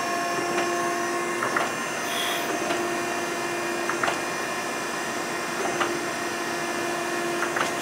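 Okamoto surface grinder's hydraulic system running with a steady hum, the table traversing back and forth on step feed. Light clicks come every second or two as the table reverses at the end of its stroke.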